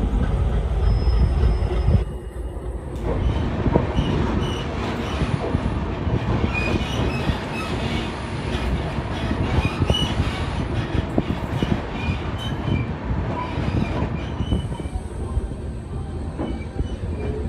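Passenger train coaches running on the rails, a continuous rumble with many quick clacks over joints and points and short high wheel squeaks, heard from beside the moving coach.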